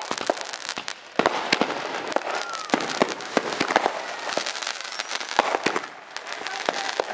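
Consumer fireworks going off: a dense, irregular string of sharp cracks and pops over a continuous hissing crackle, with a louder bang about a second in.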